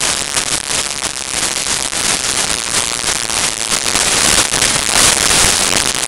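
Concert crowd cheering and screaming, a dense loud hiss with crackling distortion from an overloaded microphone.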